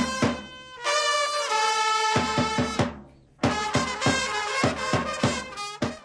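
Japanese baseball cheering-squad trumpets playing a cheer melody over regularly beaten drums, with a brief pause about halfway through.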